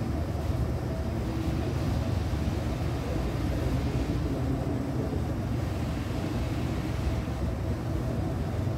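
Steady low mechanical hum and rumble, unchanging throughout, with a faint steady higher tone above it.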